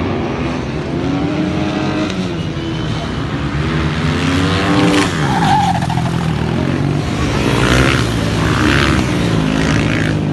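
Several racing motorcycles running hard through a tight course, their engines revving up and dropping back again and again through gear changes and corners.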